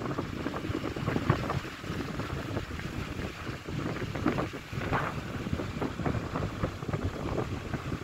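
Wind buffeting the microphone in uneven gusts over the low rumble of a moving vehicle.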